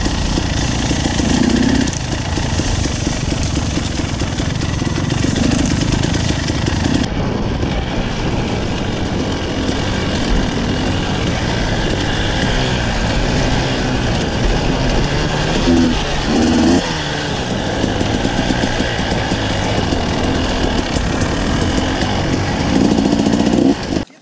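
KTM 300 two-stroke dirt bike engine running under load while riding a trail, revving up and down with the throttle. The sound cuts off abruptly near the end.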